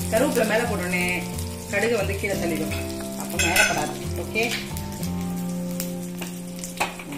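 Curry leaves sizzling in hot oil in a small stainless-steel kadai, a tempering (tadka) being fried.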